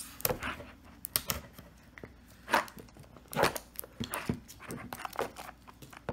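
A small cardboard product box handled by hand: irregular short rubbing and scraping swishes of fingers and cardboard, with a few light clicks, as the box is turned over.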